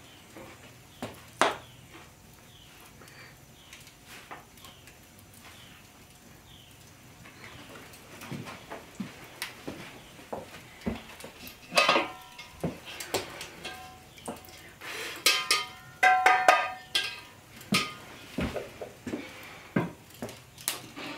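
Metal pan and kitchenware being handled on a wooden table: scattered knocks and clicks, with bursts of ringing metallic clinks about 12 s in and again around 15 to 16 s. Faint, repeated high chirps during the first several seconds.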